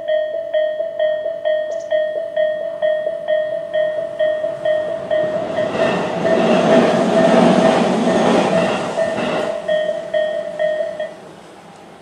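Electronic level-crossing warning bell (Tobu 'sound A' type) ringing a steady, fast repeating ding. A Tobu 20400 series electric train passes over the crossing for about four seconds in the middle, its running noise the loudest part. The bell stops about eleven seconds in, once the train has cleared.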